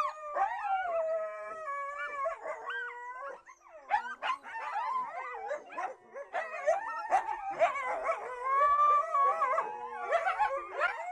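A chorus of several canids howling together, their long wavering howls overlapping, with yips mixed in after a short lull about three and a half seconds in.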